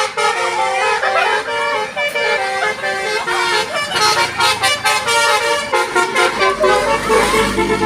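Bus 'telolet' musical horn playing a quick tune of steady horn notes that step from pitch to pitch. A low rumble comes in about six seconds in.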